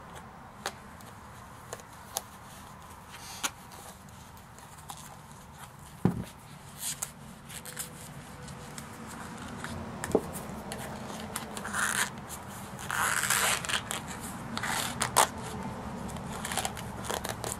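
Handling noises from a metal Altoids tin and a knife sheath: scattered clicks and taps at first, then a stretch of scraping and rubbing as the tin is worked under a rubber inner-tube band on the sheath.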